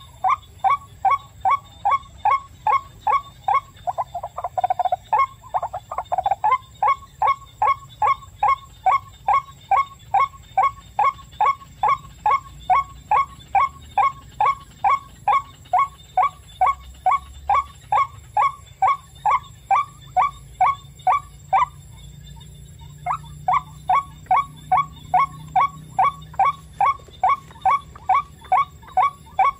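White-breasted waterhen call: one note repeated about three times a second at a very even pace. It breaks off for about a second late on, then resumes. A lower, rougher sound overlaps it briefly about four to six seconds in.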